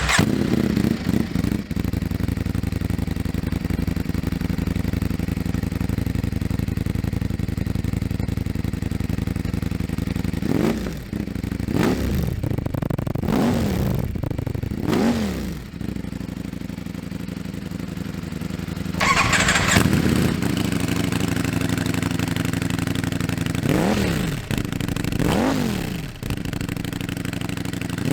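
Ducati Streetfighter V4 S's V4 engine, with a full Akrapovic exhaust system, just fired up and idling. Quick throttle blips rev it and let it fall back: four in a row about 11 to 15 seconds in, and more near the end. There is a brief louder burst about 19 seconds in.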